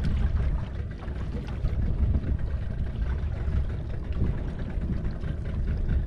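Steady low rumble of wind and water noise on a small fishing boat at sea, with no clear engine note.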